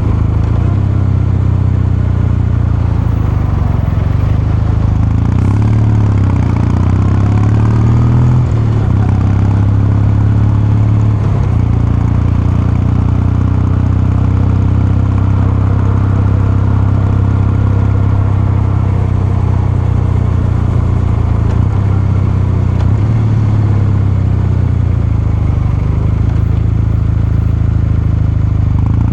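Kawasaki Meguro K3's air-cooled 773 cc parallel-twin engine and exhaust running as the bike is ridden. The note rises and falls a few times in the first third, then holds steady.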